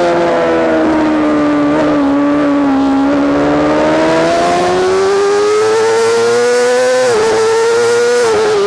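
Yamaha R6's inline-four engine at speed on a race track. The revs sag and then climb steadily under acceleration, with two quick dips near the end as it shifts up a gear.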